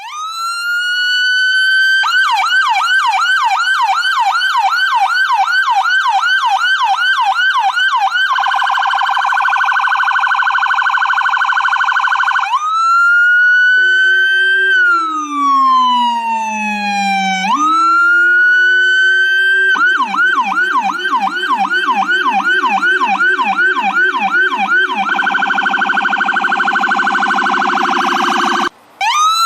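Electronic ambulance siren cycling through its tones: it winds up in pitch, then yelps at about three sweeps a second, then warbles very rapidly. A slow wail falls and rises again before the yelp and rapid warble return. It cuts out briefly near the end and winds up again.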